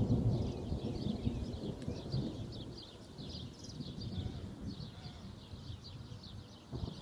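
Thunder rumbling low and fading away over the first few seconds, while small birds keep chirping.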